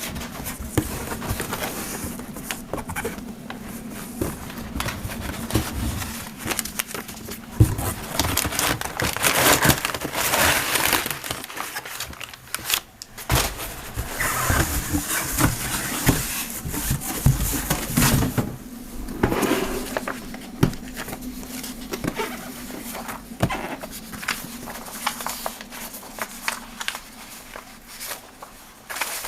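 Packaging being handled during an unboxing: plastic and cardboard rustling and crinkling, with small knocks and clicks as the parts are taken out.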